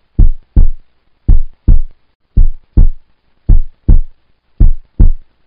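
Heartbeat sound effect marking a quiz answer countdown: paired low thumps, lub-dub, five pairs at about one a second.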